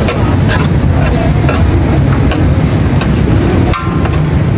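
Metal serving spoon scraping and knocking against a large aluminium pulao pot as rice is scooped into a plastic container, a short clink every half second or so, over a steady low rumble of traffic engines.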